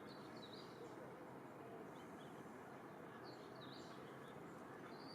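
Quiet outdoor background hiss with faint, short bird chirps twice, one near the start and one about three seconds in.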